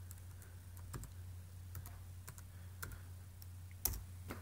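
Typing on a MacBook laptop keyboard: scattered, irregular key clicks, with one louder click near the end.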